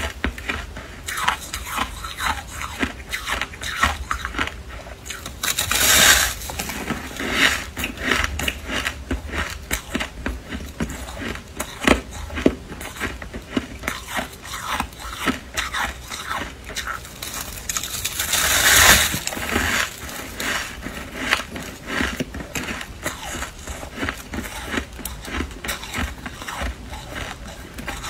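Fluffy freezer frost crunching and crackling as it is bitten and chewed, a dense run of fine crackles with two louder, longer crunches about six and nineteen seconds in.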